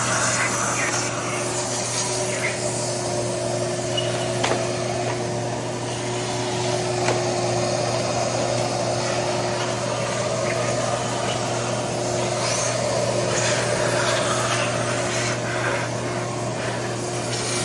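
Engine parts being scrubbed and sprayed with aerosol brake cleaner to strip cooked oil residue: steady rubbing and hissing with a few sharp clicks, over a constant low hum.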